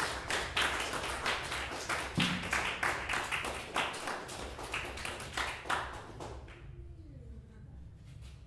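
Audience applauding with dense, irregular clapping that dies away about six and a half seconds in, leaving faint quiet talk.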